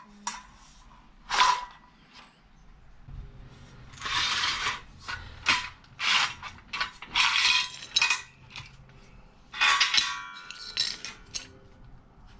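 Metal parts of a Ryobi garage door opener rail being handled and pulled apart: irregular clattering and scraping in short bursts, with one metal clink that rings on briefly about ten seconds in.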